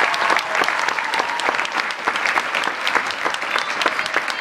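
Audience applauding, a dense clatter of many people clapping.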